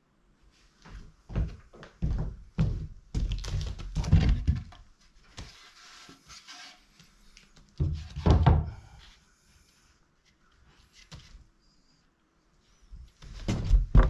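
Pine boards being set down and shifted on a wooden plank floor: wooden knocks and thunks with short scrapes as the boards slide, in three bursts, the busiest in the first few seconds.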